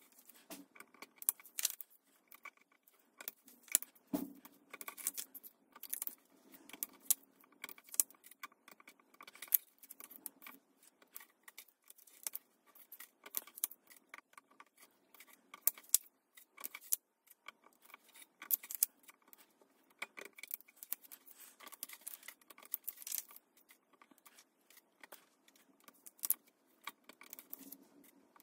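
Weeding hook picking and peeling cut heat-transfer vinyl from its clear plastic carrier sheet: a faint, irregular run of small clicks, scratches and crinkles as the waste pieces are lifted off.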